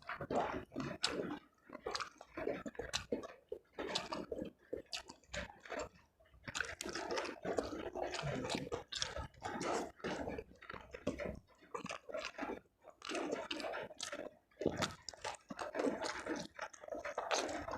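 A person chewing food close to the microphone: an irregular run of short clicks and smacking mouth sounds with brief pauses.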